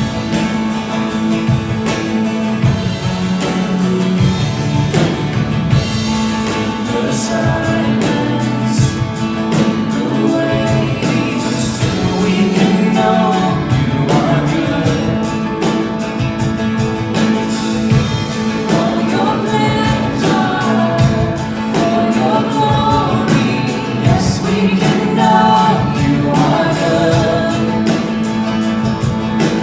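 Worship music: a band playing to a steady beat, with voices singing.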